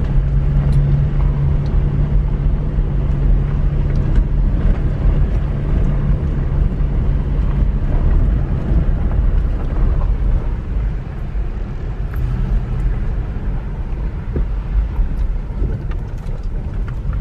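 Toyota Tacoma pickup driving slowly over a rough dirt track, heard from inside the cab: a steady low engine hum over tyre and road noise, with a few small knocks. The engine hum drops off about halfway through.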